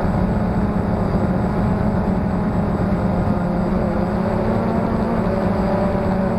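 Pixhawk-controlled Phantom quadcopter's motors and propellers humming steadily in flight, picked up by the camera carried on the drone itself, with a strong low hum and a few higher steady tones.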